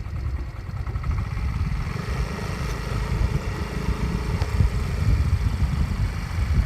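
A moving car: engine and road noise under a heavy, gusty rumble of wind buffeting the microphone.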